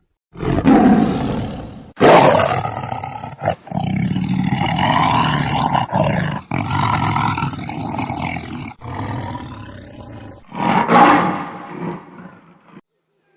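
A large animal roaring, heard in a run of short clips spliced one after another with abrupt cuts between them.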